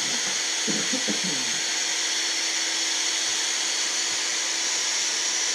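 Cordless drill running steadily at speed, spinning an engine valve by its stem while a green abrasive pad is held against it, scrubbing carbon deposits off the valve: a continuous whir with a hiss from the pad.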